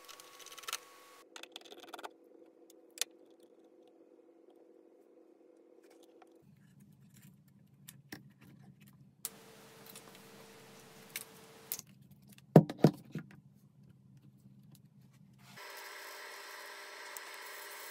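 Small clicks and taps of hand tools on the laptop's metal frame and screws, with a few sharper clicks about two-thirds of the way through. About two seconds before the end, a handheld hot air gun comes in, blowing steadily with a whining hum, heating the keyboard's adhesive to soften it.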